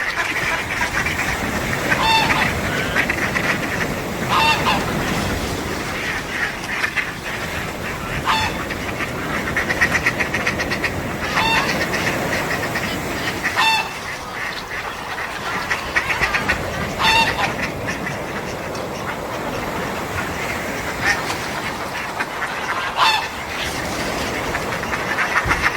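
Sea waves washing steadily on a beach, with gulls giving short, honking cries every few seconds.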